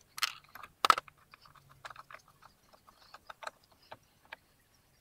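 Irregular plastic clicks, knocks and rattles from the cabin air filter housing being worked loose by hand, with a sharp knock about a second in and a scatter of smaller ticks after.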